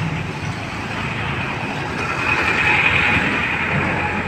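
Road traffic crossing the bridge: a heavy vehicle rumbling past, with a high whine for about a second and a half near the middle.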